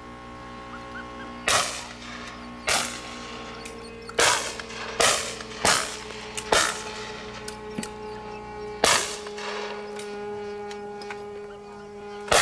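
Shotguns firing at driven clay targets: seven echoing shots at uneven intervals, some close together in pairs, as from several guns along the line.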